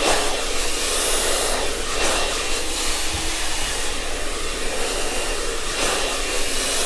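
Handheld hair dryer blowing steadily on wet hair held up on a round brush at the roots, with a faint high whine over the rush of air.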